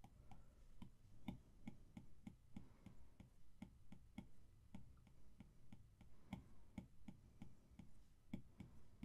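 Faint clicks of an Apple Pencil tip tapping the iPad's glass screen as short strokes are drawn, about three a second.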